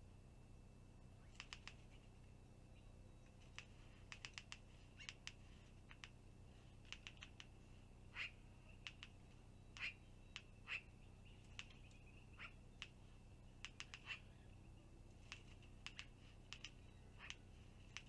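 Black-billed magpie chattering: short, harsh notes, some in quick runs of four or five and some single and louder, faint against a steady background hiss.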